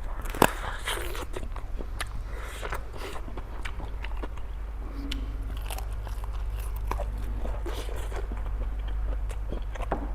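Close-miked eating: biting into and chewing crunchy food, with scattered sharp crunches and a loud one about half a second in, over a steady low hum.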